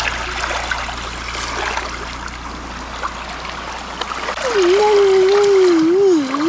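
Small waves lapping at the water's edge of a sandy beach. About two thirds of the way in, a voice comes in over them, holding one loud, wavering note.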